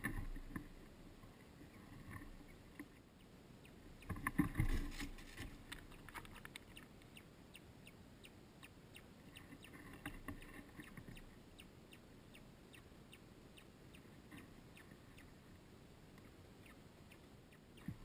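Outdoor nest-side ambience: a brief burst of rustling and low thumping about four seconds in, then a long run of short, high chirps repeating about twice a second.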